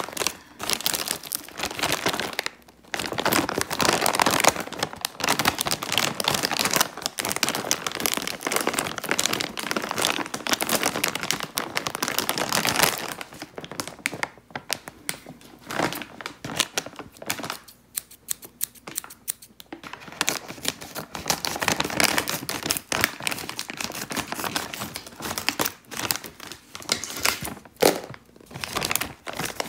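Snack bag of Oishi Potato Fries crinkling and rustling as it is squeezed and turned in the hands, with a few short pauses.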